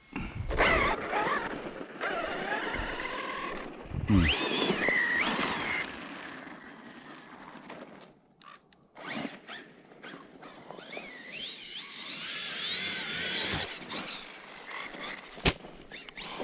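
ARRMA Siren 6S 1/10 4WD RC truck's brushless electric motor whining up and down in pitch as the truck speeds up and slows on snow, with a couple of short knocks.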